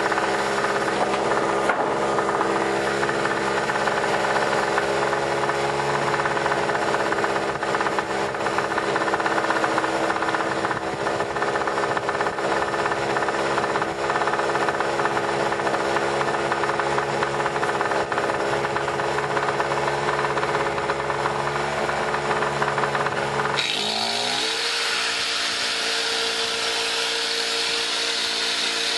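Harbor Freight 800-watt portable generator's 63cc two-stroke engine running steadily after a cold start. About 23 seconds in, a plugged-in grinder switches on with a high whine, and the engine note shifts and wavers as it takes the load.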